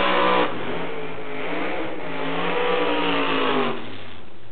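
Drag-racing funny car's engine revving hard during a burnout, its pitch rising and falling; the engine note drops away near the end.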